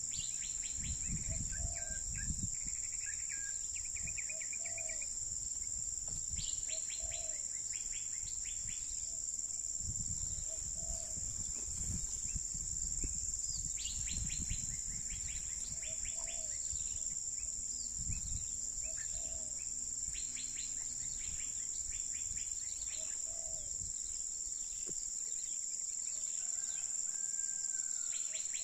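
Tropical forest ambience: insects keep up a steady high drone while birds call repeatedly with short downward-sliding notes. A low call recurs every few seconds, and there is occasional low rumble.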